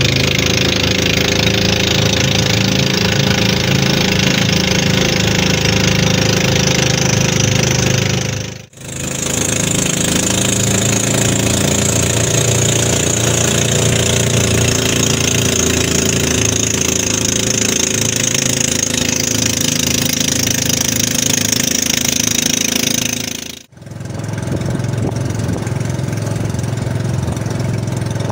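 Engine of a small outrigger fishing boat running steadily while underway, with water and wind rushing past. The sound drops out briefly twice.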